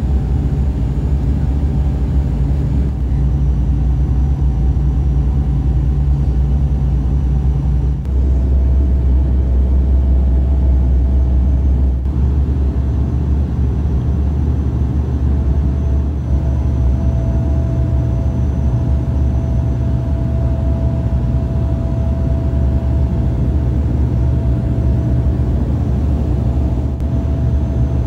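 Twin-turboprop engine and propeller drone of a de Havilland Dash 8-100, loud and steady with a constant hum on top whose pitch steps down slightly about eight seconds in.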